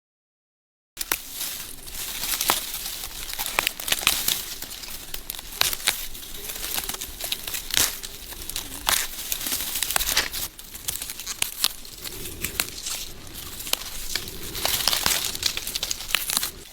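Dry bamboo leaf litter rustling and crackling as it is disturbed, with many sharp little snaps and clicks scattered through. It starts abruptly about a second in, after a moment of dead silence.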